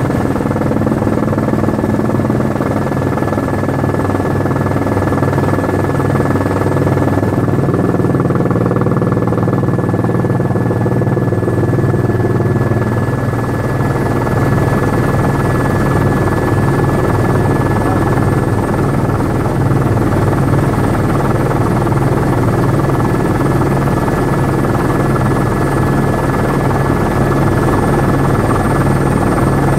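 Helicopter in cruising flight heard from inside the cabin: steady loud rotor and engine noise with a low throb and a constant high-pitched whine.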